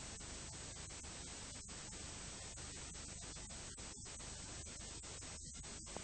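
Steady hiss of blank recording noise with a low hum underneath, broken by many brief dropouts.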